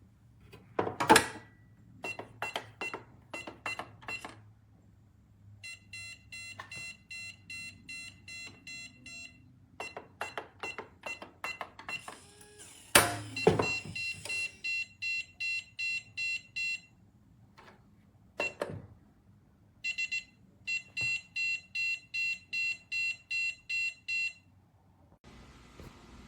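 Electronic beeper of a biometric pistol safe giving three runs of rapid, evenly spaced high beeps, about three a second, between clicks and knocks of the lid and keypad being handled. The loudest is a sharp knock just before the second run of beeps.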